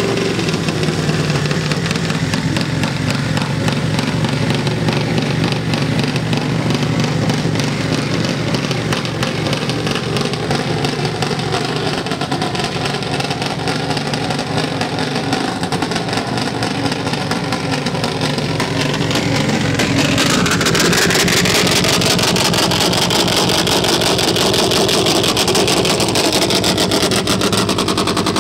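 Supertwin Top Fuel drag bike's engine idling with a fast, even pulse. About twenty seconds in it grows louder and a rising whine sweeps up over it.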